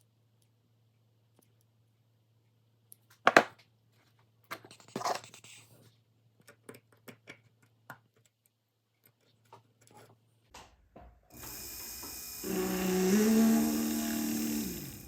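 Small metal tools clicking and scraping on a jeweler's bench, with one sharp click about three seconds in. Near the end a jeweler's rotary handpiece starts: a steady hiss, then a whine that rises as the motor spins up, holds, and winds down.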